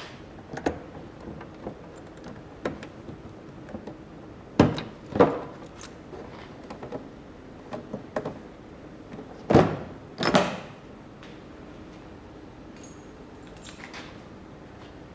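Irregular clicks and knocks of hard objects being handled, with two pairs of louder clunks about five and ten seconds in, then only a low steady background.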